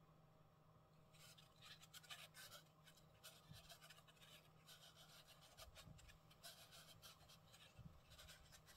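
Near silence: faint, scattered scratching and rubbing of fingers handling a pleated paper oil filter cartridge, over a faint steady room hum.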